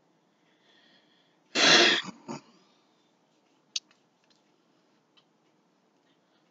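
A loud cough, quickly followed by a shorter, quieter one; a single sharp click comes a little later.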